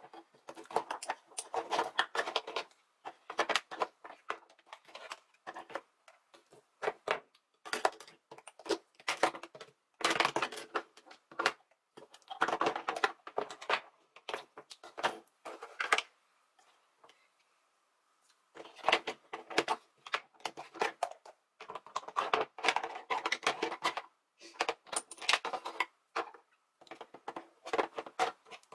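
Plastic makeup compacts, lipstick tubes and cosmetic cases clicking and clattering against each other as they are picked up and set down in a drawer organizer. The clicks come in quick runs, with a pause of a couple of seconds a little past the middle.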